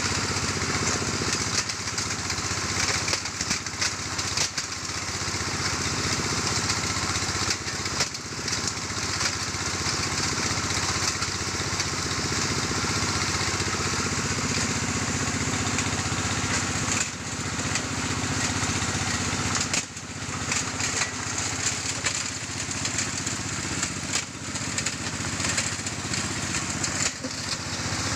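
Stone grinding machine running steadily: a motor drone mixed with the irregular crunching and clattering of rock being ground to sand.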